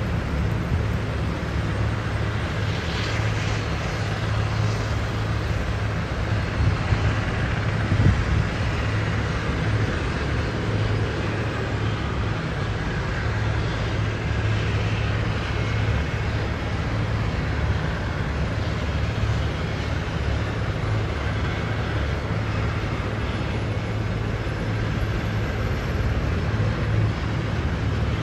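Large twin-turbine Marine Corps VIP helicopter running on the ground with its main rotor turning: a steady low engine-and-rotor hum with a hiss over it.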